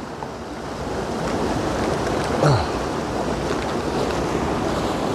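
Steady rushing of a waterfall, a little louder after the first second. About two and a half seconds in there is a brief low falling sound.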